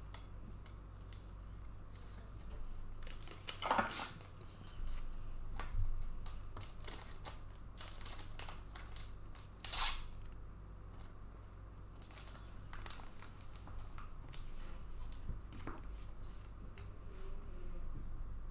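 Hands handling trading cards in clear plastic sleeves and top loaders: crinkling and rustling plastic with scattered small clicks, and two louder swishes about 4 and 10 seconds in, the second the loudest.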